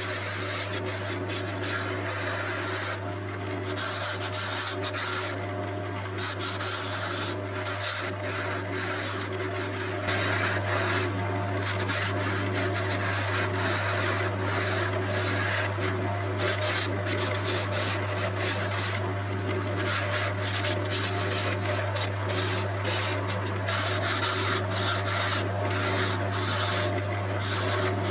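A turning chisel cutting a spinning African padauk handle on a wood lathe: a continuous scraping, shaving hiss over the steady hum of the lathe motor. The cutting grows louder about ten seconds in.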